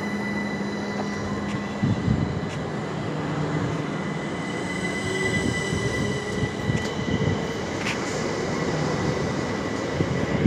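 A Southern Electrostar electric multiple unit moving along the platform, its traction motors whining and rising slowly in pitch as it picks up speed, over a steady high-pitched whine and a few wheel clicks.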